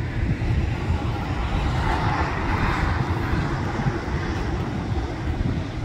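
Jet engines of a Boeing 747 cargo freighter on its landing rollout, a distant rushing hiss that swells about two seconds in and then fades. Underneath it is wind rumbling on the microphone.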